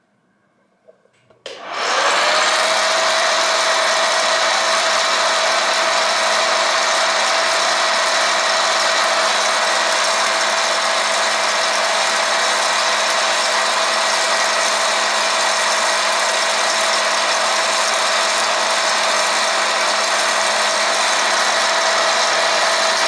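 Mini electric popcorn machine switched on about a second and a half in: its fan motor spins up with a rising whine, then runs steadily with a loud rush of blown air. It is popping the last kernels left inside.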